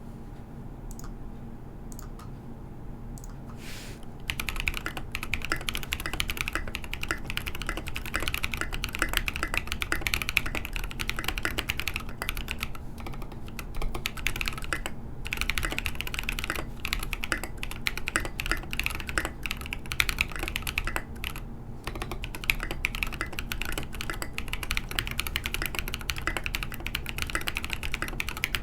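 Typing on a Southpaw full-size mechanical keyboard with lubed Holy Panda tactile switches and SA keycaps, keys clacking in a fast, continuous stream. A few lone keystrokes come first, then steady typing starts about four seconds in, broken by two short pauses.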